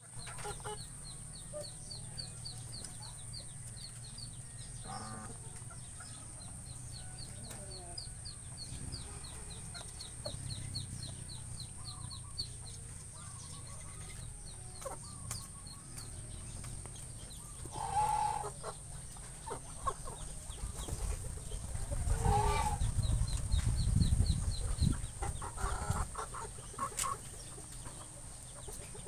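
Backyard chickens clucking, with a few louder calls in the second half, over a long run of rapid high chirps. A low rumble comes in during the last third.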